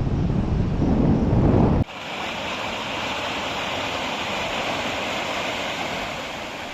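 Wind buffeting the microphone on a moving bicycle, a loud low rumble that cuts off suddenly under two seconds in. A quieter, steady, even hiss follows.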